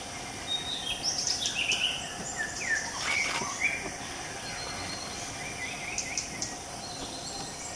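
Forest birds calling with short chirps and gliding whistles over a steady hiss of insects, busiest in the first half; a few short sharp clicks about three seconds in and again near the end of the calls.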